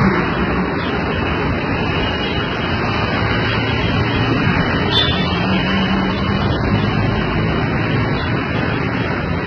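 Steady, loud rushing background noise with a low hum that comes and goes, like passing vehicle traffic.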